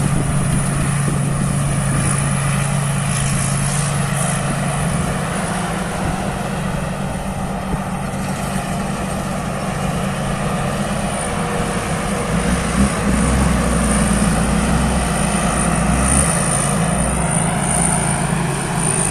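Thai Seng Yont rice combine harvester running steadily while harvesting, its engine droning with a thin high whine above it; a deeper rumble swells for a few seconds past the middle.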